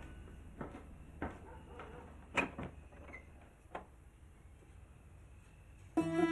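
A few scattered light knocks and clicks over a quiet room, the loudest about two and a half seconds in. Bowed string music comes in near the end.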